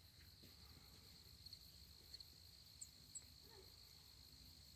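Near silence: faint open-air ambience with a steady high insect trill, and a couple of short, faint high chirps about three seconds in.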